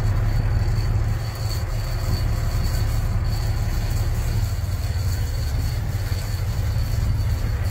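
Steady low rumble of a sportfishing boat's engine running, with a faint thin high whine over it.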